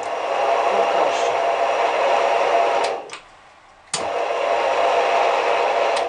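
VSN R-20 drill press's electric motor switched on with a click of its start button and running steadily. About three seconds in, a click of the stop button cuts it off and it winds down quickly. A second later it starts again with a click, and near the end it is stopped with another click.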